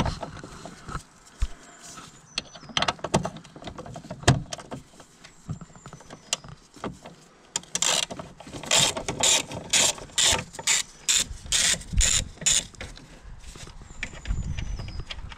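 Ratchet socket wrench with a 13 mm socket undoing the battery hold-down clip bolt on a VW T5 van. First come scattered clinks and knocks of metal as the socket is worked onto the bolt, then a regular run of ratchet clicks, about two or three a second, for several seconds, stopping a few seconds before the end.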